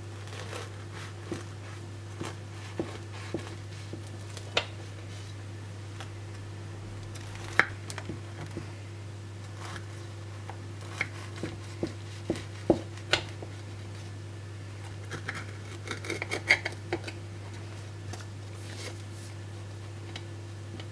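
Kitchen knife cutting through the crisp baked crust of a chicken pie on a ceramic plate: scattered sharp cracks and clicks as the blade breaks the crust and knocks against the plate, over a steady low hum.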